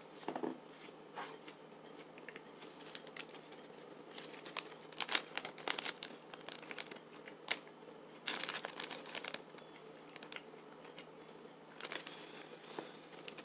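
Plastic protein-bar wrapper crinkling as it is handled and turned over, in scattered clusters of short crackles.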